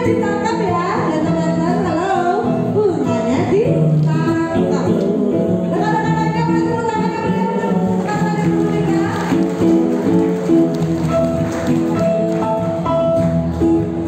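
A woman singing through a microphone over accompanying music. Her voice slides and wavers in the first few seconds, then the music goes on in steady held notes.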